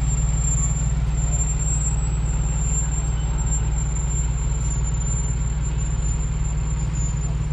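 Fire engine's diesel engine running as the truck rolls slowly past, a steady low rumble. A thin, steady high-pitched whine sits over it.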